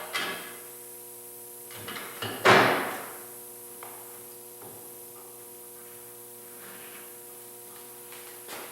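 A few knocks and clunks from handling the melamine top on the angle-iron frame, the loudest a single heavy thump about two and a half seconds in.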